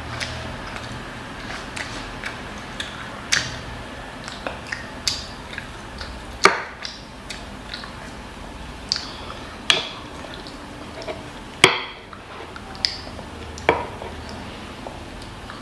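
A child eating: chewing and lip-smacking, with irregular sharp clicks and taps. The two loudest come about six and a half and eleven and a half seconds in.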